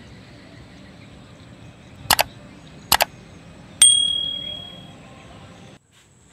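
Subscribe-button animation sound effects: two sharp clicks about a second apart, then a bell notification ding that rings out for about a second. A faint steady background hiss cuts off suddenly near the end.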